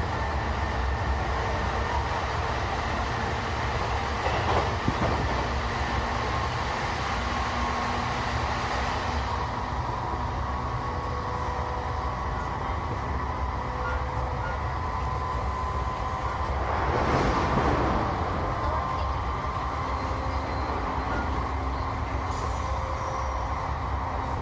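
Tokaido Line electric train running, heard from inside the carriage: a steady wheel-on-rail rumble with a few steady whining tones from the train's electrics. About seventeen seconds in, a louder rushing sound swells briefly and fades.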